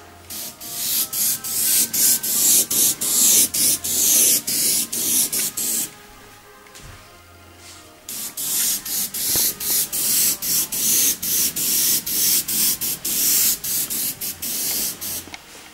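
Gravity-feed airbrush spraying paint: a high hiss of air let out in quick short bursts, in two runs with a pause of about two seconds between them.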